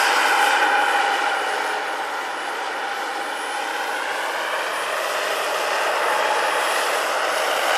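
Gas turbine of a large scale-model BO-105 helicopter whining steadily in flight. It dips a little about two seconds in and grows louder again toward the end.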